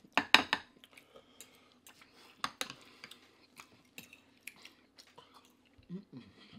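Close-miked chewing of ham and cheese grits, with scattered sharp clicks of cutlery and handling. A cluster of loud clicks and knocks just after the start, and a short hum near the end.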